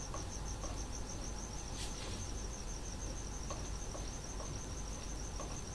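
A cricket chirping in rapid, even pulses, high-pitched and steady, over a low hum.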